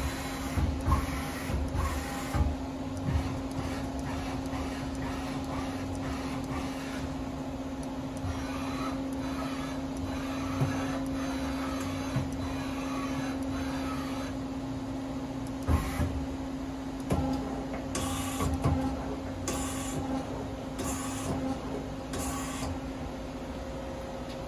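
Daewoo Puma 240 MSB CNC turning center running with a steady hum, with a few short whirring bursts about a second and a half apart near the end, and occasional clicks.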